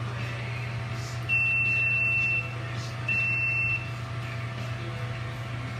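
Two high electronic beeps, the first about a second long and the second shorter, over a steady low hum.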